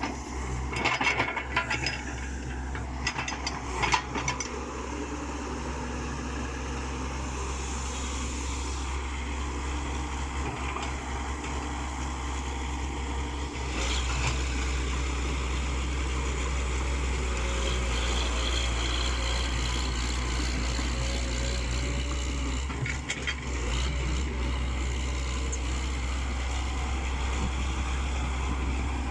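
Heavy diesel engine of an excavator running steadily, with sharp metallic clanks and knocks in the first few seconds; it gets louder about halfway through.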